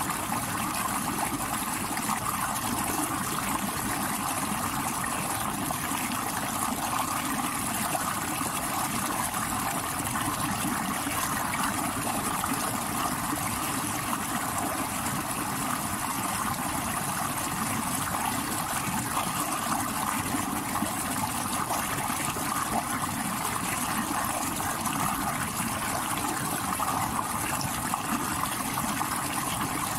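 Stream water rushing over rocks, a steady, unbroken rush with no let-up.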